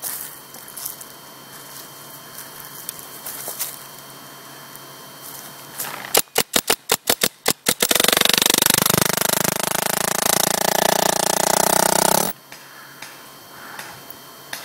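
Paintball marker firing: a quick string of about nine single shots over a second and a half, then a continuous rapid-fire burst of about four seconds that stops abruptly.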